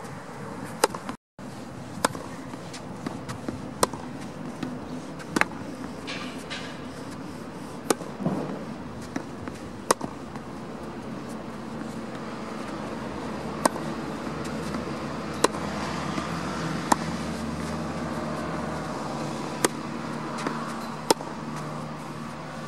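Tennis balls being struck by rackets in a rally, a sharp pock every one to three seconds at an uneven pace, over a steady outdoor background noise.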